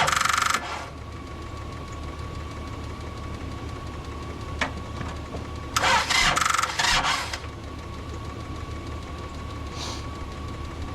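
An engine idling steadily with a thin steady whine, broken by two short harsh noisy bursts: one right at the start and a longer one about six seconds in.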